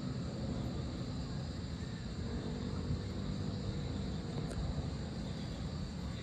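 Steady low outdoor rumble with a faint distant engine drone between about one and four seconds in, over a thin, steady high-pitched hum.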